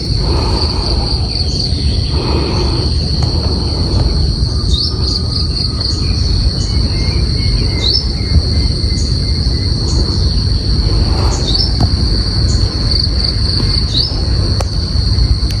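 Insects shrilling in a continuous high trill, with a short rising sweep breaking in every few seconds, over a steady low rumble.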